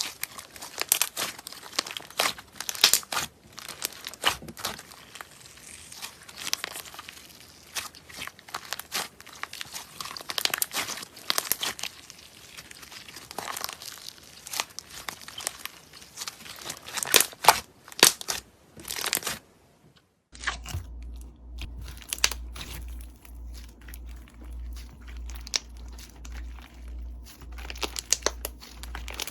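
Crunchy slime being squeezed and worked by hand, with dense crackling and popping. About two-thirds of the way through it cuts to another clip of sparser crackles over a low pulsing hum.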